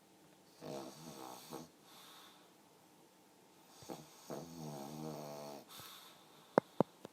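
Pug snoring in its sleep: two long snores about three seconds apart, each with a rattly pitched drone. Near the end come two sharp clicks a fraction of a second apart, louder than the snores.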